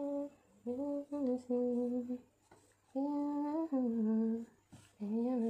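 A person humming a slow tune in short phrases of held notes, with brief pauses between them.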